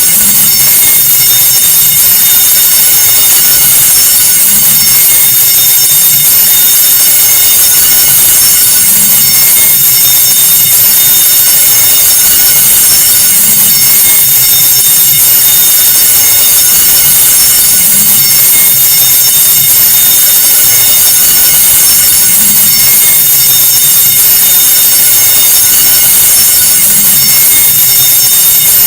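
School alarm bell ringing continuously: a loud, steady, high-pitched metallic ring with no breaks. It is the earthquake alarm signal sounded in school earthquake drills.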